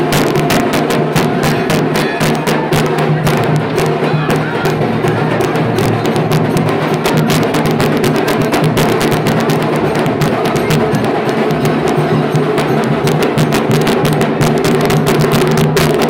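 Band music playing loud and steady: fast, dense percussion strokes over sustained instrument tones.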